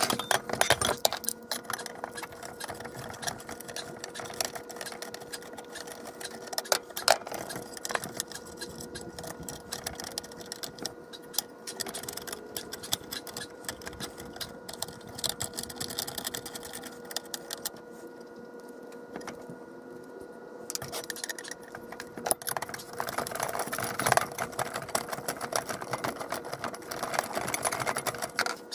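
Screwdrivers working the screws around the steel rim of a vintage Autolite electric horn's diaphragm housing: quick clicking, ticking and scraping of metal tools on metal, with small parts clinking. It gets busier in the last few seconds.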